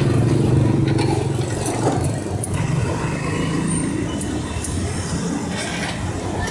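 A motor vehicle's engine running close by, a low rumble that is loudest for the first two seconds and then eases off.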